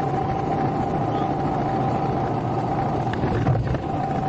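Motorcycle engine running steadily while it climbs a rough off-road track, with a brief louder bump about three and a half seconds in.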